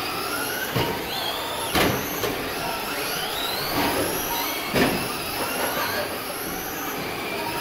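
Several stock Traxxas Slash RC trucks' electric motors and gears whining, the pitch rising and falling over and over as they speed up and brake around the track, with two sharp knocks, one about two seconds in and one nearly five seconds in.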